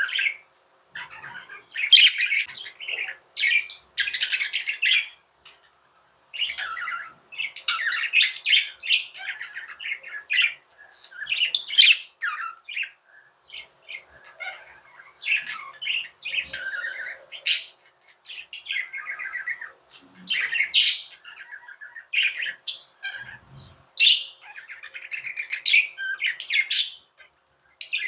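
Pet budgerigars chirping and warbling in busy runs of quick, high calls with short pauses between.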